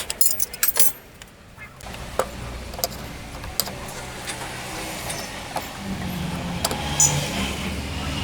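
Metal tools and brake parts clinking and jingling during motorcycle rear disc brake work: a quick flurry of clinks at the start, then scattered single clicks. A low engine hum grows louder in the second half.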